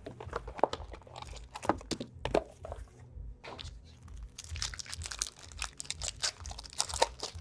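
A sealed box of trading cards being unwrapped and opened by hand: plastic wrapping crinkling and tearing, with scattered clicks of card and packaging. The crinkling turns dense and continuous about halfway through.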